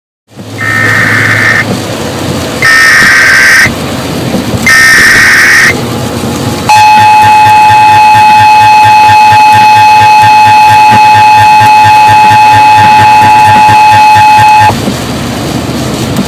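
Emergency Alert System tornado warning: three short bursts of digital SAME header tones about a second apart, then the loud, steady two-tone EAS attention signal held for about eight seconds before it stops sharply.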